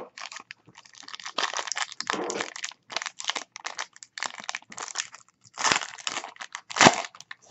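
Foil wrapper of a Panini Court Kings basketball card pack being torn open and crumpled in the hands: a run of irregular crinkling rustles, with a sharper crunch near the end.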